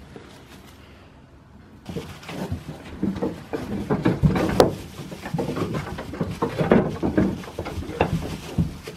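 Irregular knocks and rustles over a steady hiss, starting suddenly about two seconds in.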